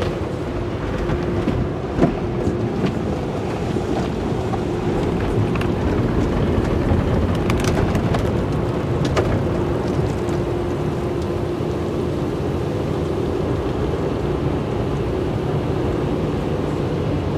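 Automatic car wash heard from inside the car: water spray drumming on the windshield and body, with a steady low hum underneath. A single thump about two seconds in and a few short slaps later on come from the wash brushes or strips striking the car.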